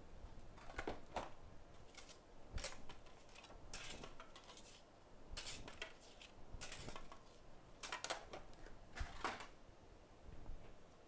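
Small metal hand tools handled on a repair bench, clinking and scraping in about nine irregular short strokes, some with a brief ring, as the work is set up for reballing a chip.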